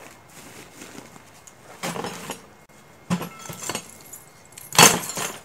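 Metal trapping gear clinking and rattling as it is handled, in three bouts about a second apart, the loudest near the end.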